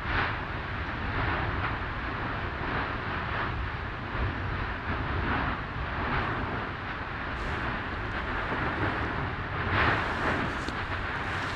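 Lava fountains of the Fagradalsfjall eruption: a continuous deep rumble with gushing surges about once a second, the loudest surge about ten seconds in.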